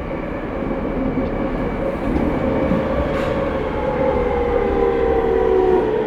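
Tokyo Waterfront Area Rapid Transit 70-000 series electric train heard from inside a car as it slows into its terminal station. Several whining tones slide slowly down in pitch over the rumble of wheels on rail, with a brief hiss about three seconds in.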